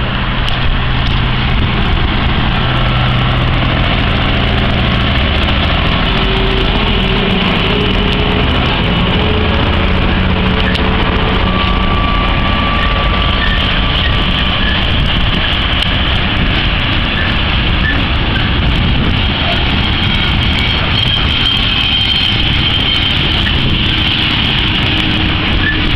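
Class 66 diesel locomotive's EMD two-stroke V12 thrashing under power as it hauls a coal train past; its engine note fades after about eight seconds and the coal hopper wagons rumble and clatter by on the rails, with a few thin squeals now and then.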